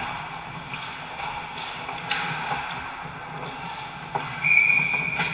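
Ice hockey play close to the net: skate blades scraping and sticks and puck clacking on the ice. About four seconds in, a referee's whistle blows a steady, shrill tone that lasts over a second, stopping play.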